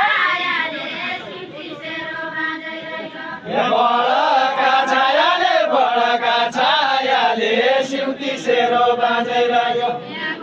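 A group of men singing a deuda song together, unaccompanied, in long held lines that bend in pitch. The singing grows louder and fuller about three and a half seconds in.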